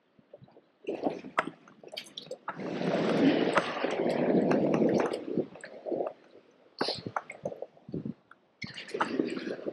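Sea water washing and sloshing over shallow rocks, coming in two surges, one from about two and a half to five seconds in and another near the end, with scattered small clicks and knocks in between.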